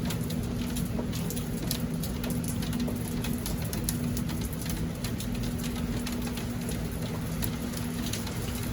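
Steady rain falling, with many separate drops tapping on surfaces, over a steady low hum.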